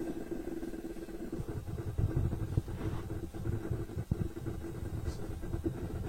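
A motor running steadily: a constant hum over an uneven low rumble.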